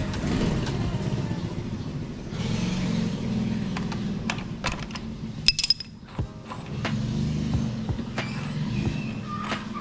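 Metal hand tools clicking and clinking against scooter engine-mount parts, with one sharp ringing metallic clink about five and a half seconds in, over a steady low drone.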